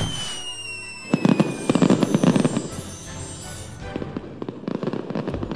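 Cartoon firework sound effect: a whistle falling in pitch, then a run of crackling pops as the sparkling emblem bursts in the sky, with background music.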